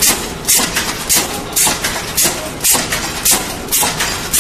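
Automatic wire mesh welding machine for poultry cages running its weld cycle: a short, sharp hissing clack repeats about twice a second as the pneumatically driven welding heads press down and release.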